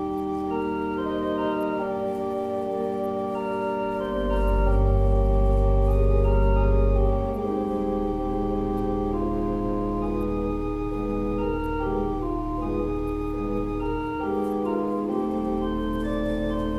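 Organ playing slow, sustained chords. A deep bass note comes in about four seconds in, the loudest part, and stops about three seconds later.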